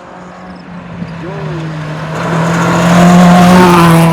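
A 2WD rally car approaching flat out on a gravel stage, its engine note held high and getting steadily louder as it closes in.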